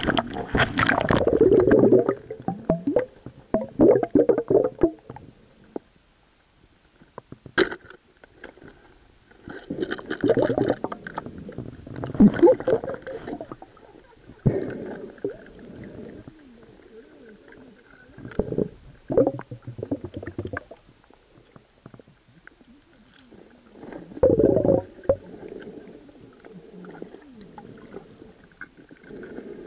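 Muffled underwater gurgling and bubbling as water rushes around a submerged camera mounted on a speargun, in irregular bursts with quieter gaps between them. There is one sharp click about eight seconds in.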